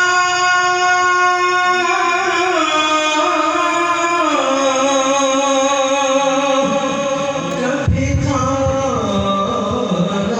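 A naat (Urdu devotional song) sung in long held notes that step and glide slowly from pitch to pitch, with a musical backing. A low thump comes about eight seconds in.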